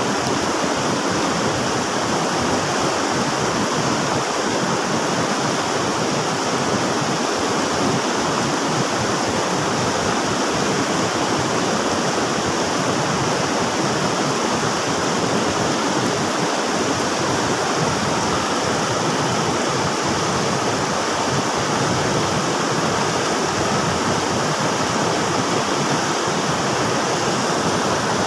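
River water rushing and splashing, a steady loud noise that does not change.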